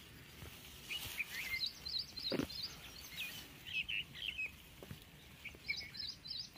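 Birds chirping in quick runs of short high notes, with some lower gliding calls, about a second in and again near the end. A single knock about two and a half seconds in.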